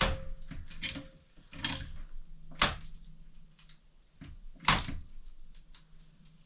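Wood creaking and cracking under load as a floor jack forces a log prop up against a cabin board: several sharp cracks a second or two apart, the loudest at the start, about two and a half seconds in and near five seconds, with fainter creaks between.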